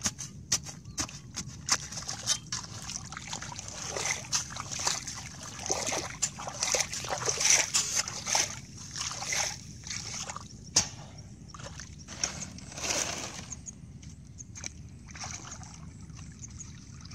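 Muddy ditch water splashing and sloshing as a person wades and churns it with a long-handled tool, in quick irregular splashes that thin out in the last few seconds.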